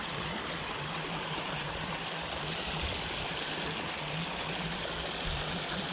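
Small creek flowing, a steady even rush of water with a faint low hum underneath.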